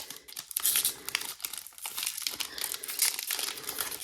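Wrapper of a 2023 Select Legacy trading-card pack crinkling and tearing as it is handled and opened, in quick irregular rustles.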